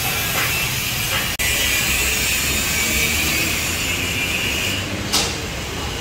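Steady construction-site din: a constant hiss over a low rumble of machinery, with one sharp knock about five seconds in.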